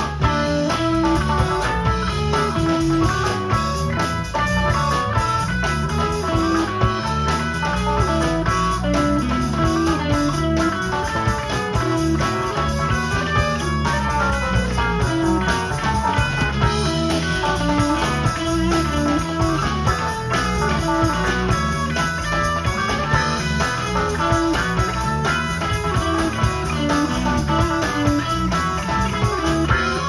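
Live amplified instrumental band music: electric guitar over drum kit and keyboard, playing continuously with a steady rhythm.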